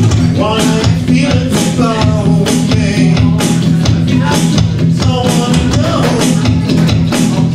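Live band playing a techno-pop/rock song: electric guitar, synth and drum kit with sung vocals, the drums keeping a steady beat under several sung phrases.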